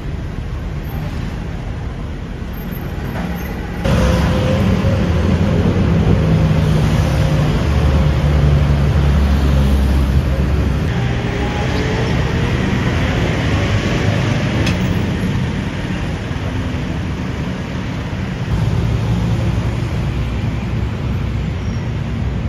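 Bangkok MRT metro train running, heard from inside the carriage: a steady low rumble and rail noise with a faint gliding motor whine. The noise jumps up sharply about four seconds in.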